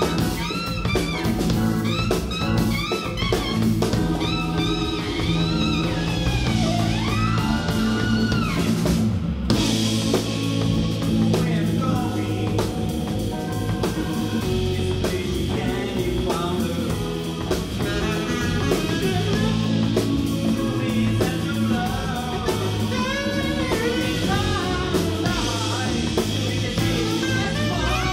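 Live band music: a saxophone plays a lead line over drum kit, bass and keyboards, and the lead thins out about nine seconds in as the full band carries on.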